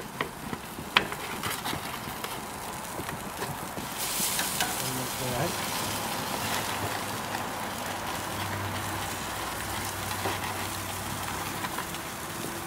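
Baby back ribs sizzling on the hot grates of a gas grill, a steady hiss that grows louder about four seconds in. A few sharp clicks in the first second or so come from metal tongs setting the ribs on the grate.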